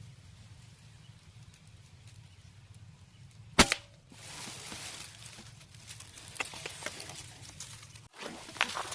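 A single airgun shot, one sharp crack about three and a half seconds in, followed by rustling with scattered clicks.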